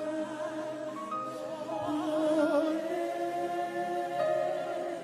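Slow gospel worship music: sustained held chords, with a voice singing long, wavering notes.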